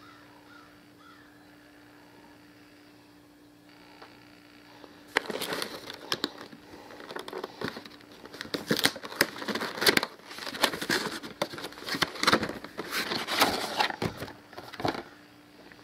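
A smartphone's cardboard retail box and plastic tray being opened and handled: a dense run of crackles, clicks and rustles starting about five seconds in, after a few seconds of faint steady hum.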